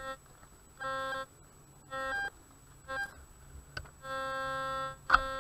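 Metal detector sounding target tones as its search coil is swept over the ground: three short buzzy beeps, then a longer held tone about a second long. A sharp knock comes just before the end.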